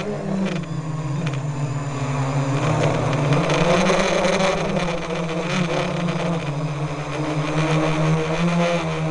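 A motor running steadily, its low drone wavering slightly in pitch.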